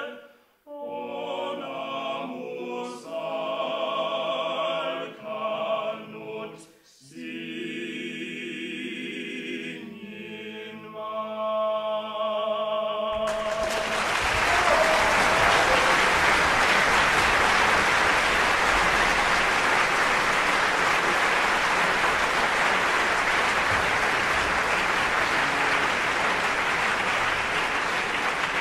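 Male vocal quartet singing in harmony, ending on a long held chord about thirteen seconds in. An audience then applauds steadily to the end.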